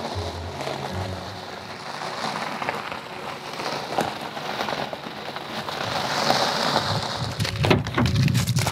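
A steady rushing, rain-like noise under faint background music. Near the end come several clicks and knocks as an SUV's rear door is opened and handled.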